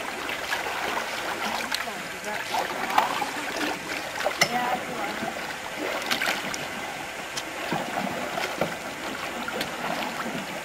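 Canoe paddles dipping and splashing in lake water, with a steady watery wash and occasional sharp clicks.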